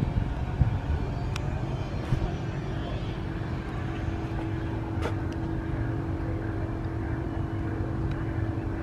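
Outdoor background noise: a steady low rumble, joined about two seconds in by a steady hum, with a few faint clicks.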